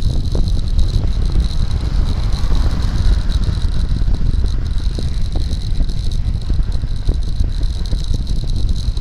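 Wind buffeting and road rumble picked up by an SJ1000 action camera on a homemade handlebar mount during a fast road-bike descent, with many short rattling ticks from the mount. A van overtakes about two to three seconds in.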